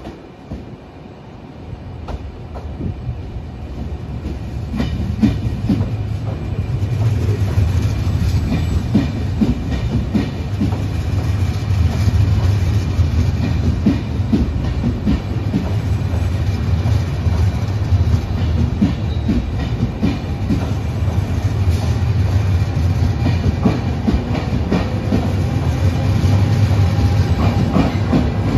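Regional push-pull train of Vivalto double-deck coaches, pushed by an E464 electric locomotive, running into the platform. Its rumble grows over the first several seconds as it draws near, then the coaches roll past with their wheels clacking.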